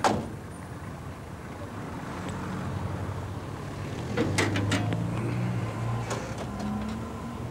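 An FX4 London taxi's bonnet being opened: a sharp click at the start, then metal clunks and knocks of the catch and lid about four seconds in and again near six seconds, over a low steady hum.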